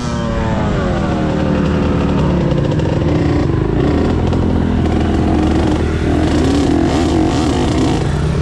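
Dirt bike engine whose pitch falls from high revs over the first two seconds, then runs on at lower revs that waver up and down.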